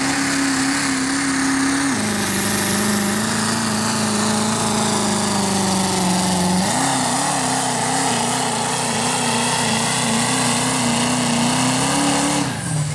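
Diesel pickup truck engine at full throttle, pulling a weighted sled. Its steady note drops in pitch about two seconds in, jumps up and wavers from about seven seconds, then falls away near the end.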